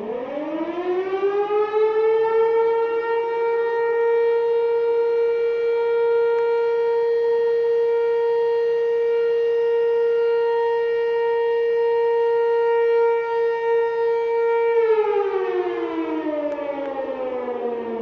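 MSL-6 siren sounding a fire-brigade call-out alarm. It winds up to a steady high tone over about two seconds, holds it, and begins to wind down about 15 seconds in.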